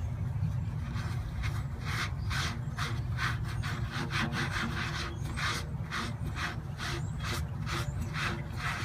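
Back-and-forth scrubbing strokes on the rubber inner liner of a truck tire, about two a second, as the ground-out patch area is cleaned with brake cleaner. A steady low hum runs underneath.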